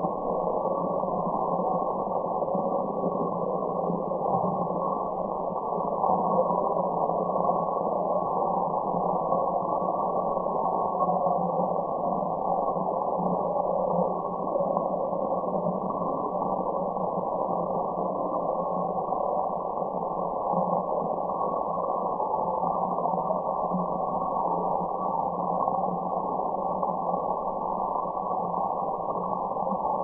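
Steady relaxation white-noise track: an even, unchanging muffled rushing hiss with nothing in the highs and a steady low hum inside it.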